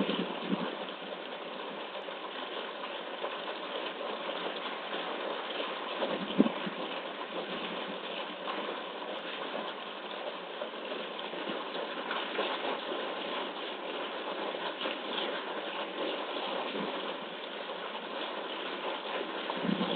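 Steady mechanical hum and rush of machinery, with one sharp knock about six seconds in.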